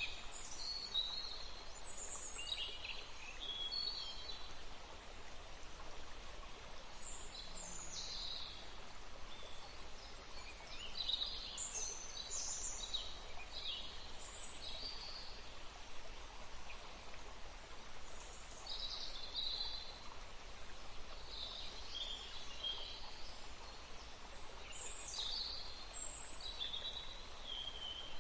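Songbirds chirping and calling over a steady wash of running water. The short, high chirps come in clusters every few seconds.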